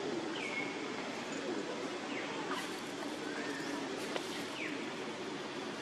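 Steady outdoor background hiss with several short, high-pitched chirping calls, some falling in pitch, scattered through it.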